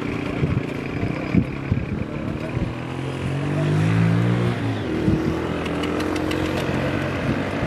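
Engine of a wooden ferry boat running, its pitch climbing about three seconds in and dropping back near the middle, with a few scattered knocks.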